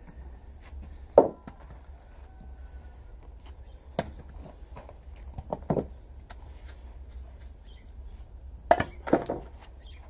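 Axe blows on firewood: several sharp wooden knocks at uneven intervals, the loudest about a second in and a close pair near the end.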